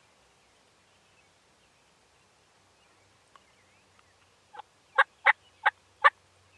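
Turkey calling: five short, loud notes about a third of a second apart, the first one softer.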